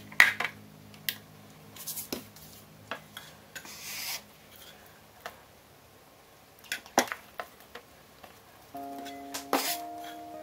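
Scattered light knocks and clicks of a bench scraper and a plastic container on a countertop while dough portions are handled, with a short scraping rub about four seconds in. Soft background music fades out early and comes back near the end.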